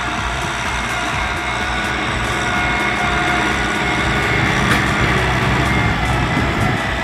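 Kubota M6040SU tractor's four-cylinder diesel engine running steadily under load as its front blade pushes soil.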